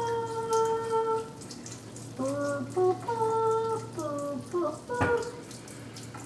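A person humming a short wordless tune, the same phrase twice, over a steady low hum, with a single knock about five seconds in.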